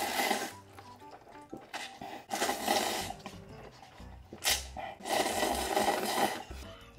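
A person slurping instant noodles with chopsticks from a paper cup held to the mouth. There are several long, hissing slurps, the longest near the end, over background music.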